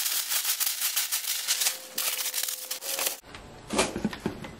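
Crumpled brown kraft packing paper crackling and rustling as it is pulled out of a cardboard shipping box. The crackling stops about three seconds in, and a few quieter knocks and rustles from handling the box follow.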